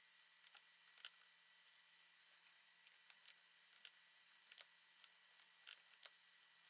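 Near silence broken by faint, irregular clicks of a computer mouse and keyboard, about a dozen scattered through the span.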